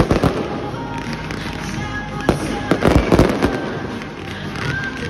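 Fireworks exploding over music. There is a bang at the start, another a little past two seconds in, and a rapid cluster of bangs about three seconds in.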